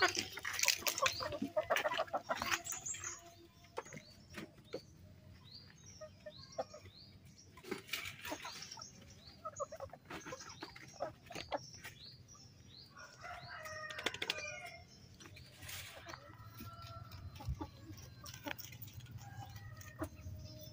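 Chickens clucking around a farmyard, with scattered short calls throughout. The first three seconds are louder, with rustling and short high calls.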